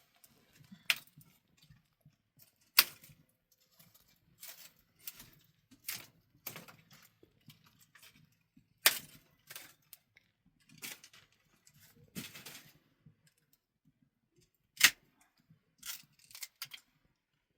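A series of sharp, irregularly spaced clicks and knocks, about fifteen in all, three of them much louder than the rest, as of hard objects being handled and set down.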